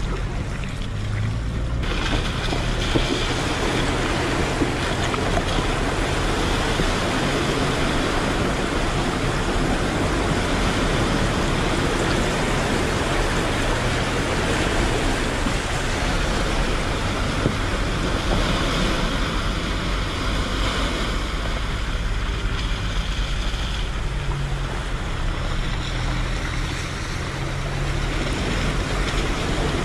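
Toyota Hilux's 2.8-litre four-cylinder diesel engine running as the pickup pushes through a flooded track, with a steady rush of splashing water around its wheels that comes in about two seconds in.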